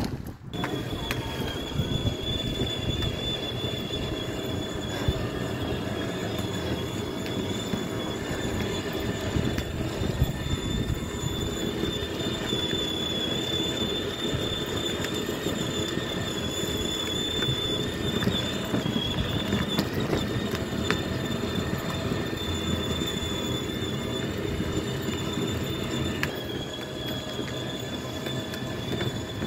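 Battery-powered children's ride-on toy car running, its electric drive motors and gearboxes giving a steady high whine, with the wheels rumbling over cracked asphalt.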